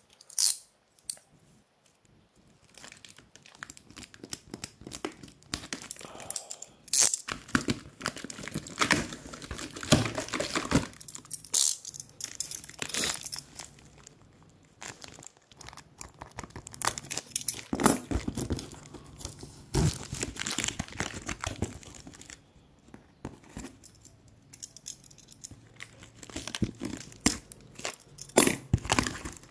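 A blade slitting the packing tape and plastic wrap along the seam of a cardboard box: irregular scratching, tearing and crinkling that stops and starts, with brief pauses.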